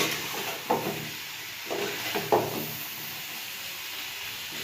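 Chilli chicken in its sauce sizzling with a steady hiss in a pan over a low flame, while a spatula stirs it, knocking and scraping against the pan a few times in the first half.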